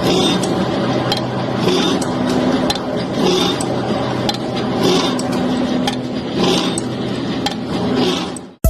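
A CNC machine running: a steady motor hum with several constant tones, and a higher hiss that swells and fades about every one and a half seconds. It cuts off suddenly near the end.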